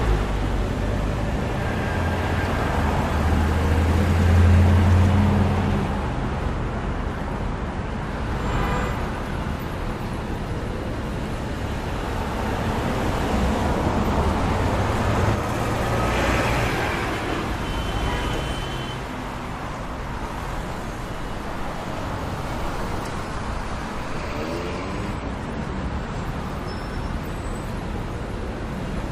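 City street traffic: a steady wash of passing cars, with a heavy vehicle's low engine rumble swelling and peaking about four seconds in.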